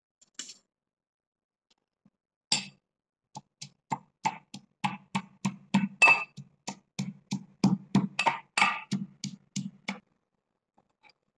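Metal pestle pounding garlic in a small metal mortar: sharp clinking strikes, about three a second, starting about two and a half seconds in and stopping near the end.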